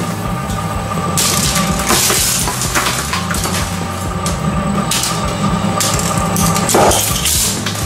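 Industrial twin-shaft shredder running with a steady hum, its rotating cutter discs crunching and cracking plastic disposable lighters in repeated bursts, with a louder crack near the end.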